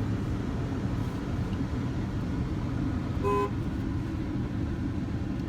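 A car horn honks once, a short toot about three seconds in, over the steady low rumble of the moving car.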